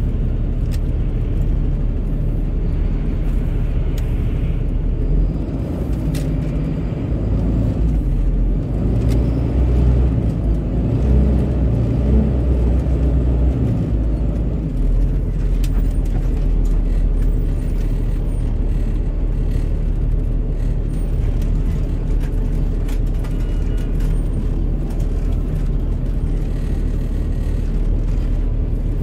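Steady low rumble of slow city street traffic: buses and taxis idling and creeping along, a little louder for a few seconds around the middle.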